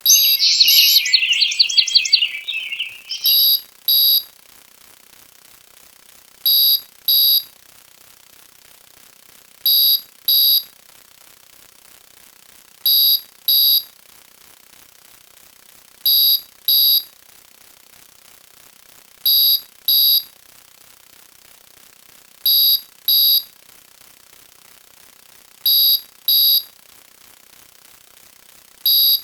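Electronic beep sound effect: a warbling chirp for about three seconds, then a short, high double beep that repeats evenly about every three seconds, like an alarm.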